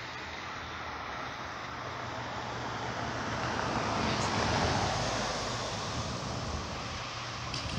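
A car driving over a level crossing. Its engine and tyre noise swell to a peak about four to five seconds in, then ease off slightly.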